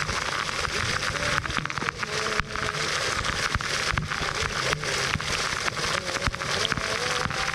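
Waterfall pouring and splashing: a steady, dense rush of falling water with a crackling spatter.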